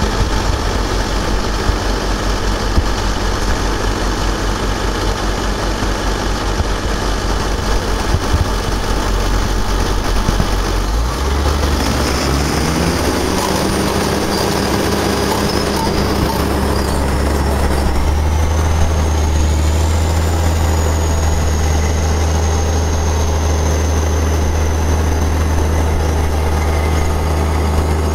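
Heavy diesel engines of a Caterpillar D6N bulldozer and a tracked tile plow running under load in a field. The engine pitch rises about eleven seconds in and then holds steady, and a thin high whine joins in near the twenty-second mark.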